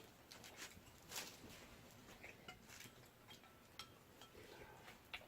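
Near silence with faint, scattered clinks of spoons and chopsticks against bowls during a meal, the sharpest about a second in.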